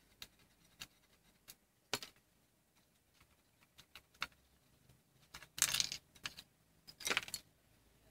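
Plastic and metal parts of a dismantled dome security camera being handled: scattered light clicks and taps, then two louder clattering rattles, about five and a half and seven seconds in.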